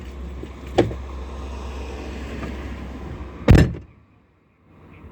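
Steady low rumble of roadside traffic with a thump about a second in, then a louder slam of a car door shutting about three and a half seconds in, after which the outside rumble cuts off to a faint hiss.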